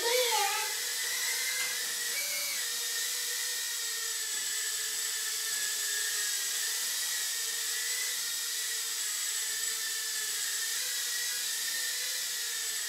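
Eachine E011 micro quadcopter's brushed motors and small propellers whining steadily in flight, the pitch wavering a little with the throttle.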